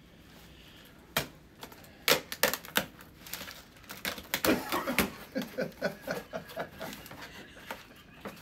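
Cardboard box being unpacked by hand: a quiet start, then sharp crackles, rips and rustles of cardboard flaps and packing paper, coming thick and fast from about two seconds in.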